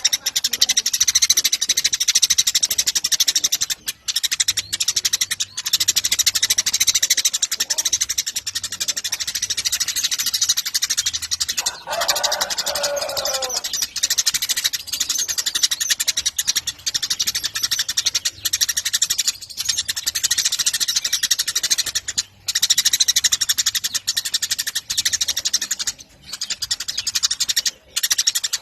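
Eurasian tree sparrow chirping in a fast, continuous high-pitched chatter with only brief breaks. About twelve seconds in, a lower call slides downward for under two seconds.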